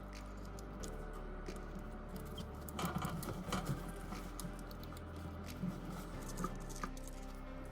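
Scattered light clicks and taps, thickest about three seconds in, over quiet background music.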